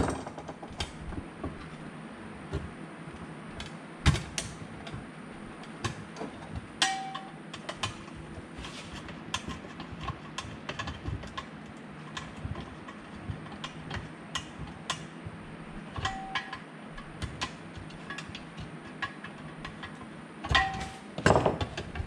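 Irregular clicks, taps and knocks of a 50-amp RV receptacle and its metal outlet box being handled and wired on a wooden workbench, with a few brief metallic pings and louder knocks about four seconds in and near the end, over a steady low hum.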